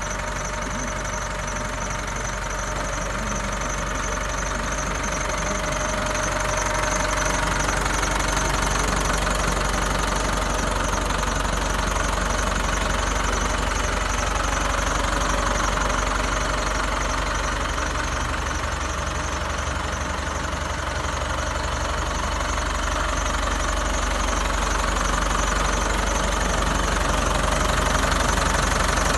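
New Holland TS100 tractor's diesel engine idling steadily, growing a little louder in the later part.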